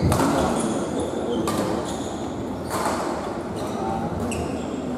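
Badminton rally: a racket strikes the shuttlecock four times, sharp hits about one every second and a half, with short high squeaks between them.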